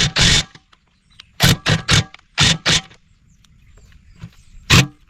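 An impact wrench firing in short bursts on stuck bolts that won't come loose: a couple at the start, five in quick succession about a second and a half in, and one more near the end.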